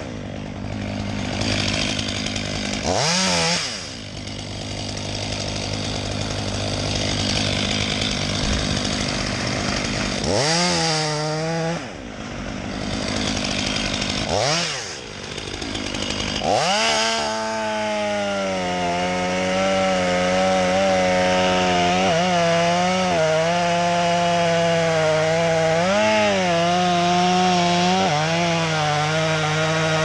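Power saw at tree-cutting work, a motor running hard with a steady pitched drone. Its pitch drops sharply and climbs back about 3, 10, 14 and 16 seconds in, then holds with small wavers.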